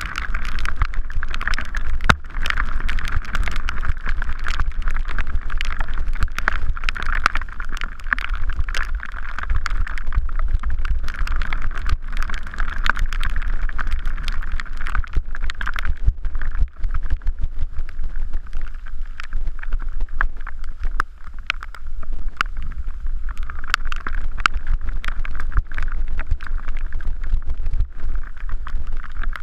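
Mountain bike descending a dirt trail, heard from a camera on the handlebars: wind rumbling on the microphone over the hiss of tyres on dirt, with frequent clicks and rattles from the bike as it hits bumps.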